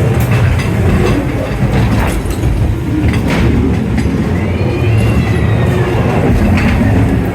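Ghost train ride car rumbling along its track, with scattered clacks from the rails and a brief wheel squeal about halfway through.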